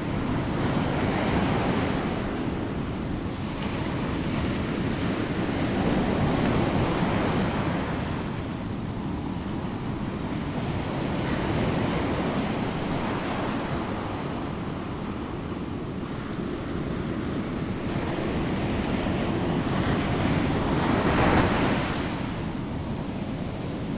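A steady rushing noise that swells and eases every five seconds or so, loudest near the end.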